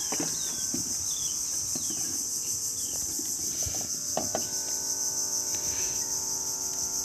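Steady, high-pitched chorus of insects in the mangroves, shrilling without a break, with a few short knocks near the start and about four seconds in.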